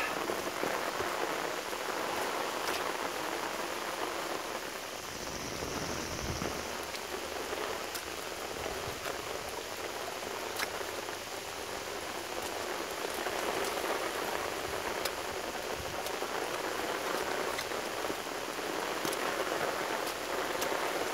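Steady rain falling, an even hiss, with occasional sharp taps of single drops close by.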